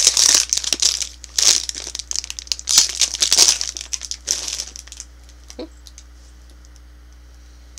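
Plastic candy bag crinkling in quick bursts as it is handled and a Twizzlers twist is pulled out; the crinkling stops about four and a half seconds in.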